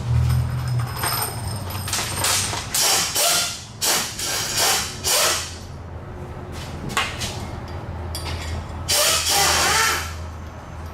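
Mechanical tool work: a run of short, sharp bursts over the first five seconds and another longer burst near the end, over a steady low hum.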